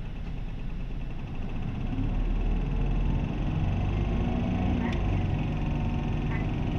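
Interior sound of an Isuzu 2DG-LV290N3 city bus on the move, its four-cylinder diesel engine running and getting louder about two seconds in, with a few faint clicks.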